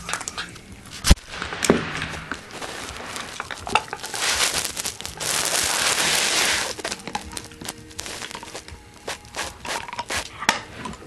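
A dog chewing on a plastic M&M's toy fan: irregular clicks and cracks of teeth on plastic, with a longer stretch of crinkling from about four to seven seconds in.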